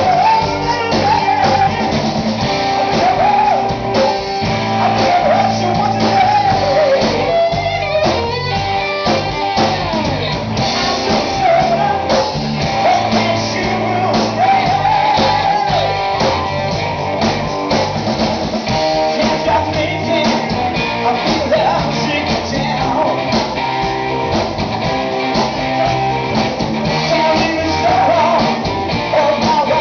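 Live amplified rock band playing: electric guitars and drums under a lead vocal line, steady and loud throughout.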